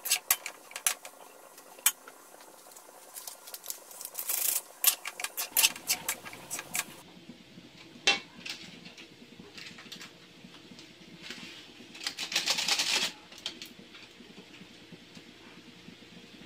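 Metal spoon clicking and scraping against a metal wok while diced squash is stirred, in irregular taps and scrapes with a longer stretch of scraping about twelve seconds in.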